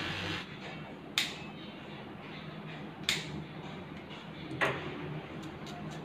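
Three sharp clicks from dog-grooming tools, about two seconds apart, then a few lighter ticks near the end, over a low steady hum.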